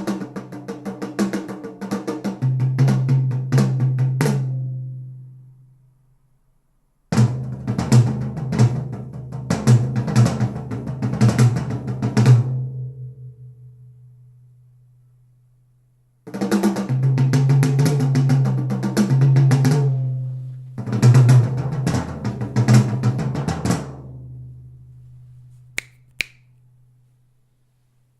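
Drum-heavy music with snare, kick and a steady low bass line, played through a JBL Control 28 two-way speaker (8-inch polypropylene woofer, 1-inch titanium-coated horn tweeter). It comes in three passages of several seconds, each fading out into a brief silence, with a small click near the end.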